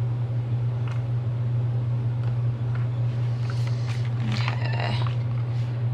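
A steady low hum runs under soft paper rustling and light clicks as planner stickers are pressed and smoothed onto a spiral-bound planner page; the rustling is busiest a little after the middle.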